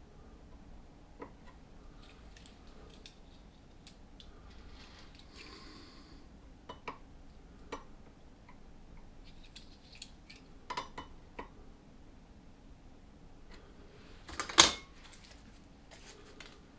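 Scattered clicks and clinks of tools and metal parts being handled on a workbench, with a short soft rustle about five seconds in and one loud knock near the end.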